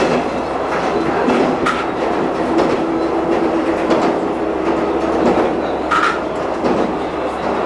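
Diesel railcar running at speed, heard from the front of the train beside the driving cab: steady engine and wheel noise with a few sharp clacks as the wheels pass over rail joints.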